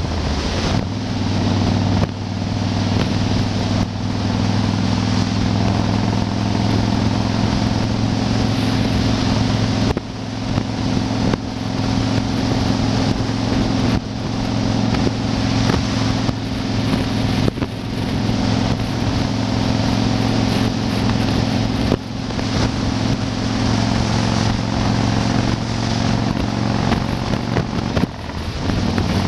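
Yamaha Wild Star XV1600's air-cooled V-twin engine running steadily at highway cruising speed, with heavy wind noise on the microphone.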